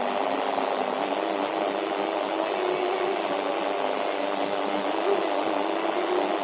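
A steady whirring noise with faint wavering tones running through it.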